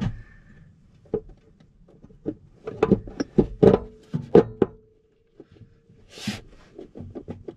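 Irregular knocks and thunks as an Espar S2 diesel heater is pressed down and seated onto its gasket and silicone on a van's sheet-metal floor, densest around the middle, with a brief hiss near the end.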